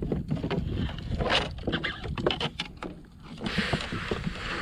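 Wind rumbling on the microphone of a fishing kayak, with bursts of splashing water and scattered small clicks and knocks.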